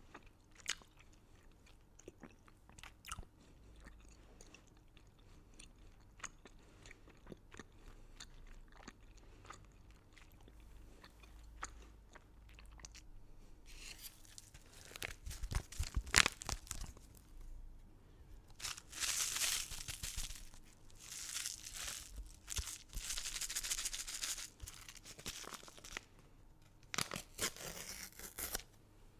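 Crunchy candy being bitten and chewed close to the microphone. Light, scattered chewing clicks for the first half give way to loud bites and then long, dense runs of crunching in the second half.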